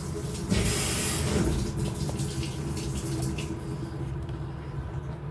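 Washing machine just started and filling: water rushes into the tub with a loud hiss about half a second in, then carries on as a steadier, quieter flow over a low hum.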